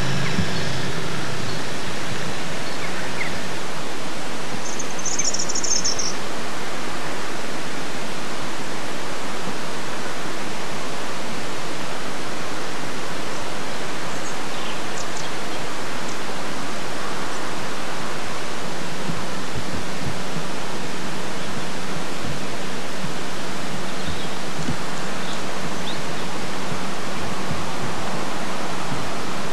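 A steady, even hiss that holds one level throughout, with a brief high chirp about five seconds in.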